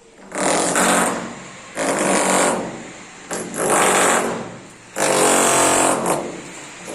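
Power drill run in short bursts of about a second and a half, starting and stopping about five times with brief pauses between.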